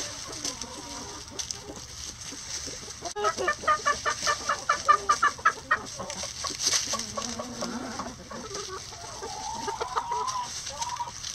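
Hens clucking as they forage. About three seconds in, one hen gives a fast, even run of clucks for a couple of seconds, and near the end there is a longer, wavering call.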